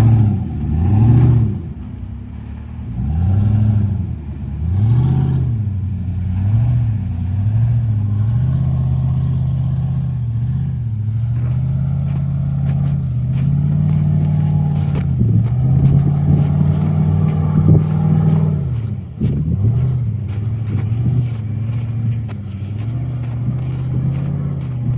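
Off-road 4x4's engine revving up and down over and over as the vehicle works to climb an obstacle, then holding steadier revs for several seconds, with a brief drop about nineteen seconds in.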